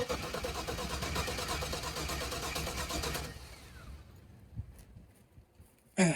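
LS-swapped V8 in a 1985 Chevy C10 cranking on its starter for about three seconds without catching, then stopping: a crank-no-start. A brief loud sound with a falling pitch comes near the end.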